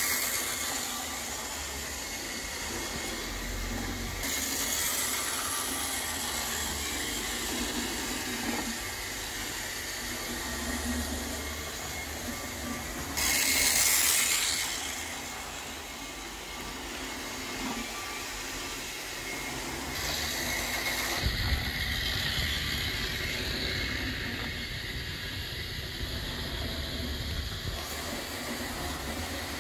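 Hornby Dublo Co-Bo model diesel locomotive and its coaches running on the track: a steady motor hum and wheel rumble, loudest about fourteen seconds in as the train passes close by.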